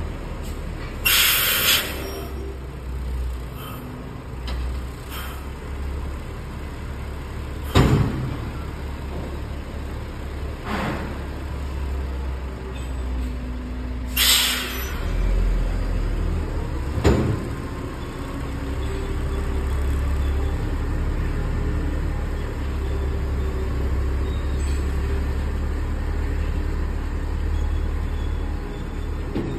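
Semi-trailer truck's diesel engine running low and steady as it manoeuvres through a tight bend, growing louder in the last third as the truck pulls forward. Two hisses of air brakes releasing, about a second in and again midway, with a few sharp knocks in between.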